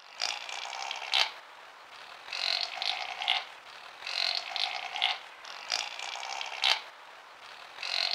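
Chamois (Rupicapra) calling: about five raspy, noisy calls a second or so long, each closed by a sharp click, repeating every one and a half to two seconds.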